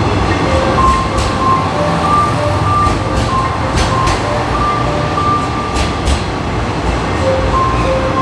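A KiHa 126-series diesel railcar rolls slowly past the platform as it pulls in, its diesel engine and wheels giving a steady low rumble with a few sharp clicks. A two-note electronic chime repeats in the background.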